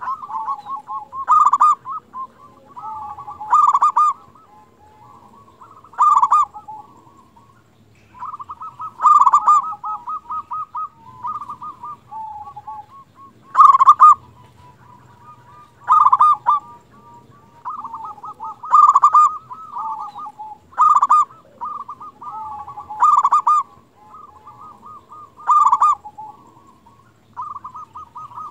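Zebra dove (perkutut) singing, a run of cooing phrases: a loud cooing phrase comes every two to three seconds, with softer rolling coos in between.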